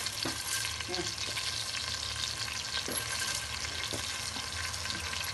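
Fried onions sizzling in hot oil in an aluminium pot, stirred with a steel ladle that scrapes and knocks lightly against the pot a few times.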